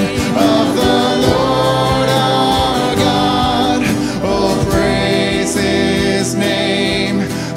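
Live church worship band playing a song, with several voices singing together over guitars and keyboard.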